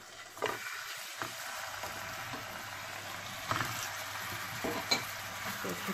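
Marinated minced meat (keema) sizzling steadily in hot cooking oil in a frying pan, with a wooden spatula stirring it and knocking against the pan a few times.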